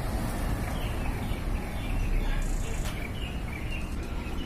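Small birds chirping repeatedly over a steady low outdoor rumble.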